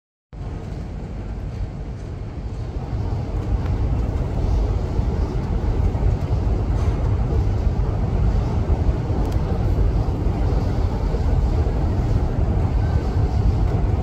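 Steady low rumble of an underground station platform, swelling over the first few seconds and then holding.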